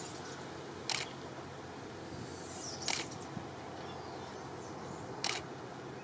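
A low, steady outdoor rumble, broken by three short, sharp clicks spaced about two seconds apart.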